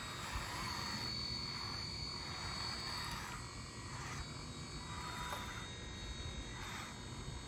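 Electric motors and servos of an RC skid steer whining in short, irregular bursts as it drives and works its bucket, over a faint steady high whine.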